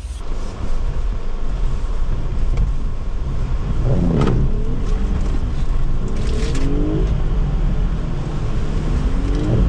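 2021 Jeep Wrangler Unlimited Sahara's V6 engine revving hard under load as the Jeep is driven at an off-road obstacle, its pitch climbing and dropping several times over a steady low rumble.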